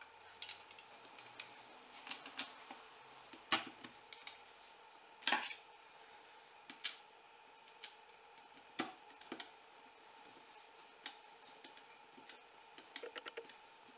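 Light, scattered clicks and knocks as the parts of a Fisher F44 metal detector are handled and fitted together during assembly, with two louder knocks and a quick run of small clicks near the end.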